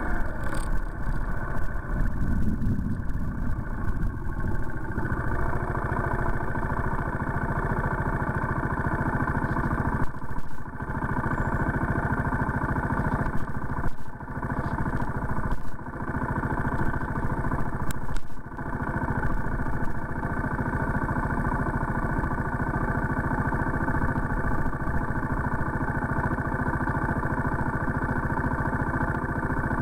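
Steady car hum heard from inside through a dashcam's built-in microphone: engine and road noise as the car slows to a stop, then the engine idling. There are a few brief dips in the sound around the middle.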